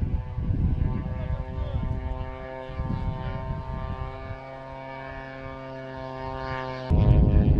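Model airplane engine droning at a steady pitch while wind buffets the microphone. Near the end a sudden loud rush of noise takes over.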